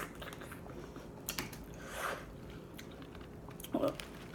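Close-up eating sounds of boiled crab legs: chewing and scattered light clicks and cracks of shell being handled, with a sharper click near the end.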